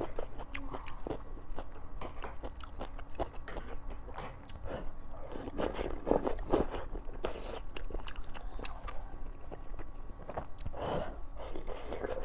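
Close-up eating of chaoshou (Sichuan wontons) in chili-oil soup: chewing with many small wet mouth clicks and smacks, and a few louder slurps about halfway through and near the end.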